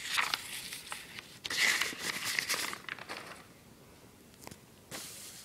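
Paper notebook pages rustling and crinkling as they are handled and turned, in two main bursts, the longer one about a second and a half in, followed by a few faint clicks.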